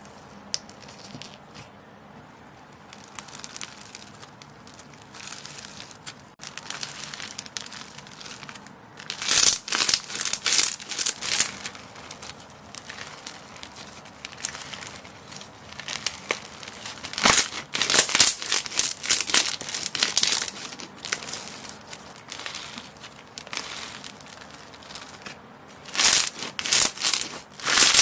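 Crunchy slime being squeezed and pressed, crackling and crinkling in several louder bursts with quieter crackling between.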